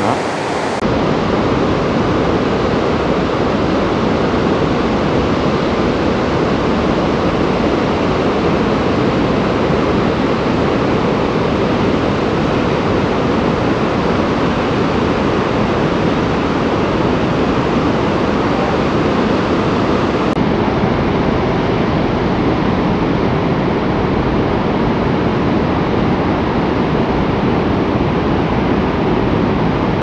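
Barachukki Falls on the Kaveri river in high flow: the loud, steady rush of a large waterfall.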